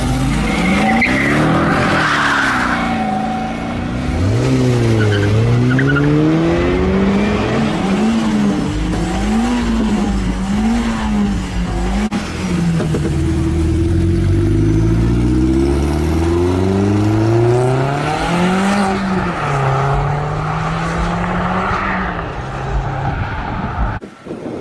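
A car's engine revving hard, its pitch swinging up and down over and over, with tyres squealing near the start and again near the end: a car being drifted.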